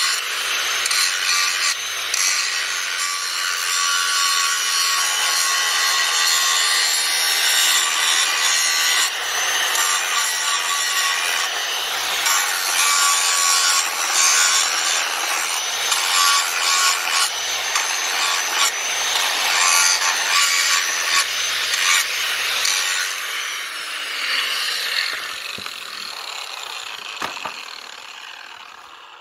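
Handheld electric angle grinder running and grinding: a harsh grinding noise over a steady high whine, rising and falling as the disc bites. Near the end it is switched off and winds down, fading with a falling pitch.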